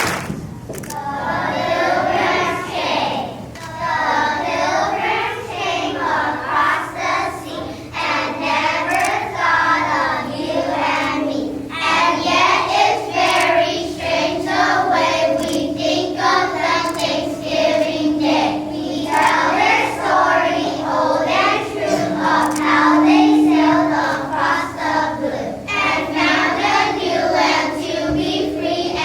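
A group of children singing a song together, in phrases, with one note held for a few seconds past the middle.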